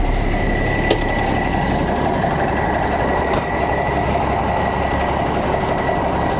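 Heavy diesel truck engine idling steadily, with a thin steady high whine over it and a single sharp click about a second in.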